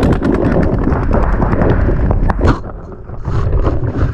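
Paintball marker firing in fast strings of pops, about a dozen a second, over low rumbling handling and wind noise. After about two and a half seconds the firing turns ragged, with scattered single pops.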